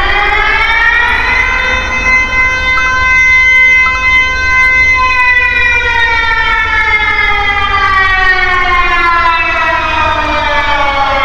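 Civil-defence warning siren wailing. Its pitch climbs, holds steady for a few seconds, then slowly falls.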